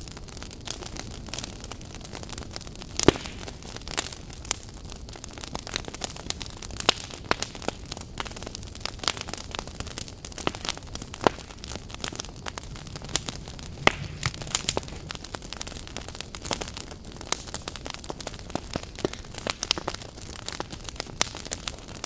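Firewood burning briskly in an agungi, a traditional Korean wood-fired firebox: irregular sharp crackles and pops, several a second, over a steady low rush of flame, with a louder pop about three seconds in.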